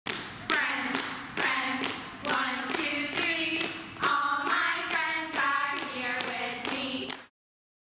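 A short jingle: a group of voices singing over a steady hand-clap beat of about two claps a second, cutting off abruptly near the end.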